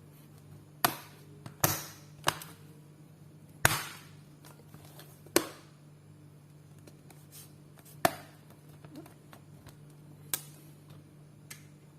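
Sharp clicks and knocks, about seven spread unevenly, as the Dell P24T notebook's bottom casing is fitted back on and pressed into place.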